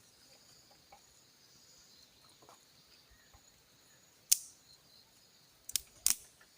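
Faint steady insect chirring, with three sharp clicks or knocks in the second half, the first the loudest.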